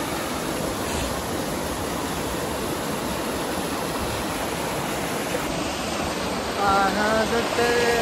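Small waterfall cascading over rocks into a pool: a steady rush of water. Near the end a voice calls out over it.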